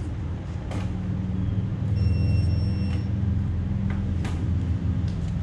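Steady low hum of machinery running in a workshop, a little louder from about two seconds in, with a couple of sharp knocks and a high, even electronic tone lasting about a second.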